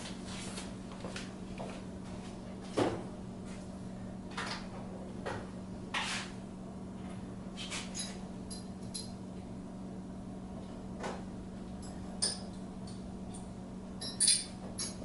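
Hand tools being handled: scattered light knocks and clicks, with a few ringing metallic clinks of a wrench near the end, over a steady low hum.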